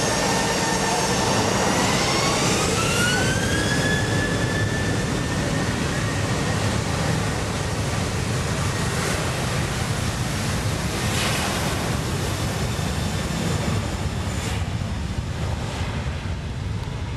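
Boeing 737-700's CFM56-7B turbofan engines spooling up, a whine rising in pitch over the first few seconds and then holding steady above constant jet noise as the airliner rolls down the runway.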